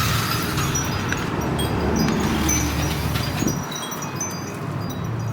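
Tinkling chimes: many short, high ringing notes at scattered pitches, over a steady low rumble.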